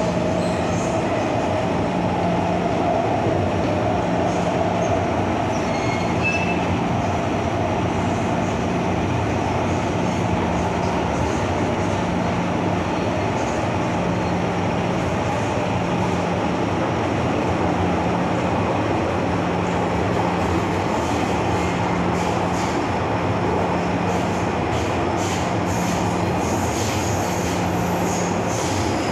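MTR M-Train electric multiple unit running between stations: steady wheel-on-rail and running noise with a low hum that comes and goes every second or two.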